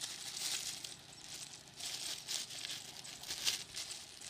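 Clear plastic bag crinkling as it is handled, in several short rustling spells.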